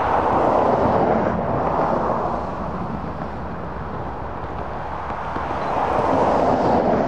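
A passing car's tyre and road noise, swelling in the first second or two and fading as it drives away, then rising again near the end.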